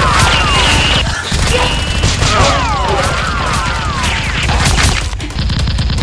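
Edited-in gunfire sound effects, bursts of sharp shots, over a looping action music track of descending synth sweeps and a wavering tone, with a steady low bass.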